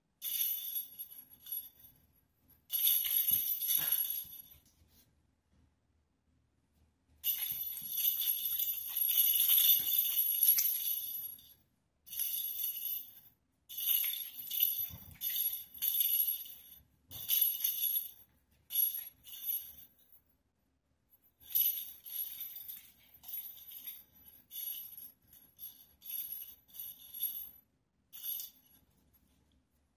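Small bells inside the plastic balls of a cat wand toy jingling in irregular spurts as the toy is swung and batted about, with short silent gaps between spells and a few soft thumps under the jingling.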